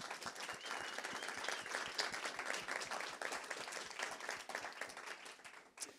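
Audience applauding: many people clapping densely, stopping fairly suddenly near the end.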